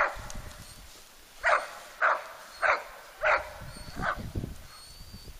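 A dog barking in a series of short, sharp barks, about six in all, spaced roughly half a second to a second apart. Low rustling of footsteps through grass comes after the last bark.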